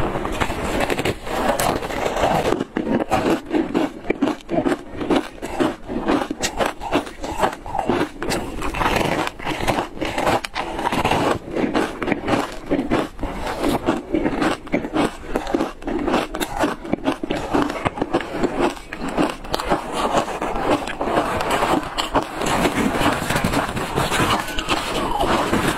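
Close-miked crunching and chewing of ice chunks coated in matcha powder: many sharp cracks in quick succession, with short pauses between bites.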